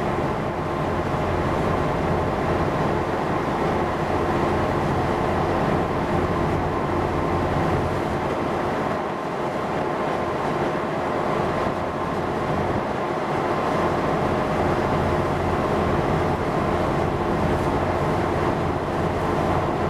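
Steady engine drone: a low rumble with several constant hums, and a rushing noise over it, running unchanged.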